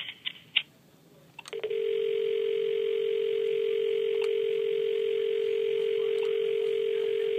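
Avaya IP desk phone's speaker playing a steady dial tone, starting about a second and a half in after a few short clicks. The phone has gone into conference setup and is prompting for the next number to dial.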